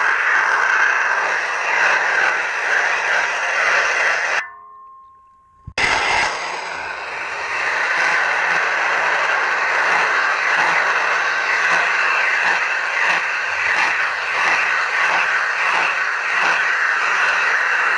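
Underwater noise of a diver cleaning a boat propeller by hand: a steady hiss with faint scraping. It cuts out for about a second and a half some four seconds in, then resumes.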